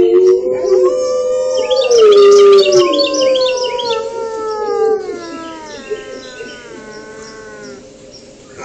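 Wolves howling: long drawn-out notes, at first two voices overlapping, then one howl sliding slowly down in pitch and fading away near the end.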